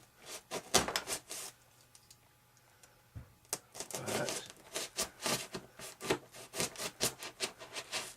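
Hobby knife (X-Acto) blade scraping and sawing through material in short repeated strokes, a burst at first, then after a pause about two to three strokes a second.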